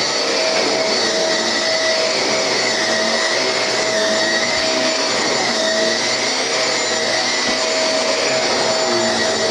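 Vacuum cleaner (hoover) motor running steadily with a constant whine, powered through its freshly repaired flex cable.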